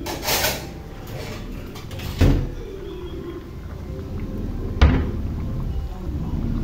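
Two sharp knocks in a kitchen, about two and a half seconds apart, over a steady low rumble, with a brief hiss at the very start.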